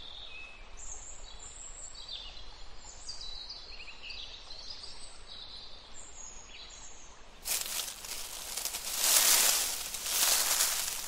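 Faint high bird chirps over a low background hiss. From about two-thirds of the way in, a small stiff-bristled brush sweeps over dry sand in loud strokes that swell and fade, about one a second.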